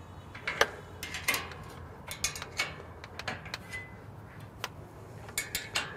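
Box-end wrench working a bolt on a steel headache-rack bracket: a series of short, irregular metal clicks as the bolt is snugged down.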